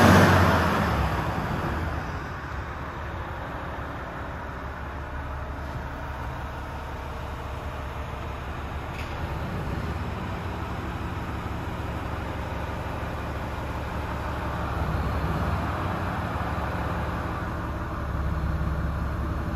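Volvo FM 450 truck's 450 hp turbo diesel engine idling steadily, heard from inside the cab; it is louder for the first couple of seconds, then settles into an even low hum.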